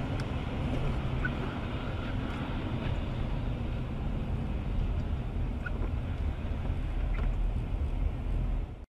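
Steady in-car road noise of a car driving on a wet highway in rain: low engine and tyre rumble with a hiss of spray and a few faint ticks. It cuts off abruptly near the end.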